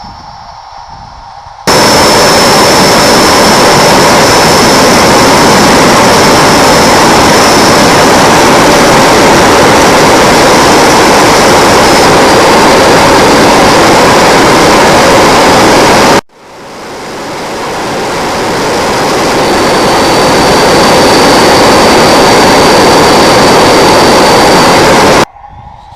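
Loud, steady rushing roar of a Freewing T-33 electric ducted-fan model jet in flight, with a thin high whine over it. It starts suddenly about two seconds in, drops out abruptly around sixteen seconds, swells back up, and cuts off just before the end.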